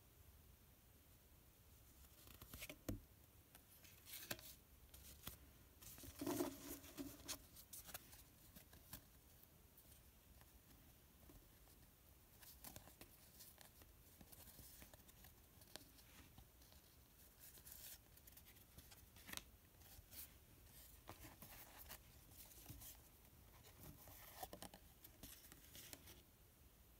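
Faint paper handling: stiff postcards sliding against each other and being set down as a stack is leafed through by hand, with short scattered scrapes and taps, the loudest about six seconds in.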